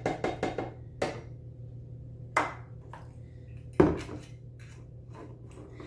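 Kitchen handling sounds from an oil bottle and a blender jar on a countertop. A quick run of small clicks, then a knock and a clack, and loudest, a solid thump a little under four seconds in.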